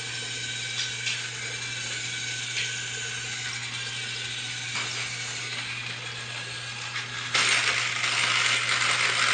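Light clicks over a steady hiss and hum, then about seven seconds in a louder mechanical whir starts suddenly and carries on: a battery-powered toy train's small motor and gears running.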